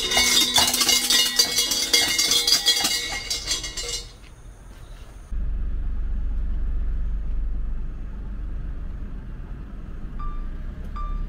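Shinto shrine bell (suzu) shaken by its hemp rope: a dense metallic jangling and rattling for about four seconds. After a cut, a low steady outdoor rumble, with soft music coming in near the end.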